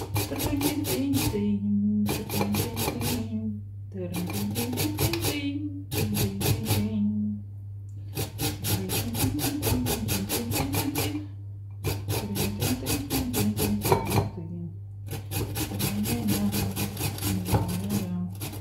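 Raw peeled potatoes being grated on a hand grater into a bowl: quick rasping strokes, about five a second, in runs of one to three seconds with short pauses between them.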